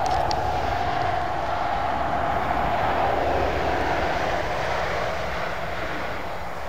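Distant engine drone, steady and slowly fading, its pitch sinking slightly as it passes.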